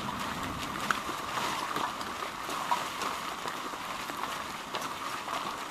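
Light rain falling in forest: a steady hiss with scattered, irregular drops ticking close by.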